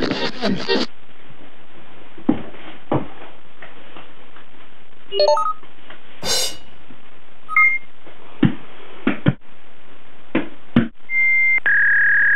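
Electronic telephone-style beeps and tones from added sound effects, over a hissy background, with several dull thumps. About eleven seconds in, a steady high tone starts and holds.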